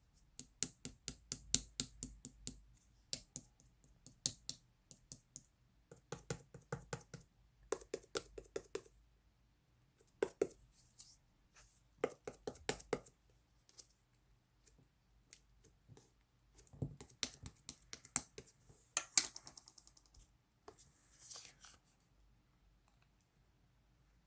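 Slime being squeezed and poked by hand, giving bursts of rapid small clicks and pops separated by short pauses.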